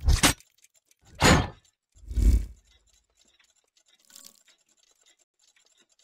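Sound effects for an animated gear-logo sting: a short rush of noise about a second in, then a heavy low hit about two seconds in, and a faint short sound around four seconds.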